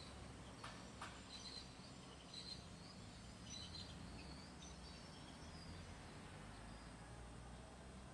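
Faint outdoor ambience with a low background hum and small birds chirping in short high notes through the first half. There are two soft clicks under a second in.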